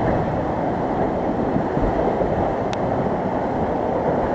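Tropical-storm wind buffeting the microphone in a steady low rumble, mixed with storm waves splashing over a waterfront railing onto flooded pavement. A faint brief tick about two-thirds through.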